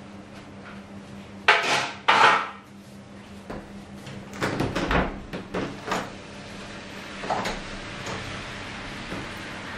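Irregular knocks and clatter of hard objects being handled: two loud ones about a second and a half in, a quick run of smaller knocks a few seconds later, and one more near the end. A faint steady low hum sits underneath.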